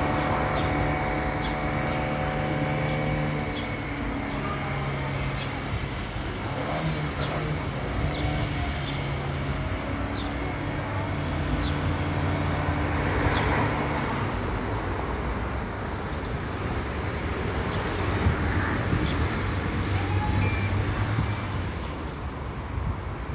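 Road traffic: a large vehicle's engine running with a steady low hum that drops out and comes back several times, over the general noise of passing cars.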